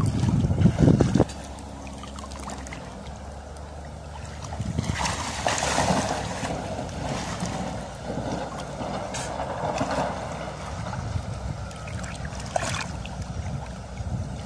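River water sloshing and splashing close to the microphone as a swimmer moves through it, with a loud low rumble that cuts off about a second in.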